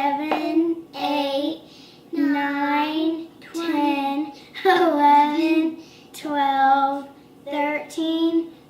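A child singing unaccompanied: a string of held notes, each about half a second to a second long, with short breaks between them.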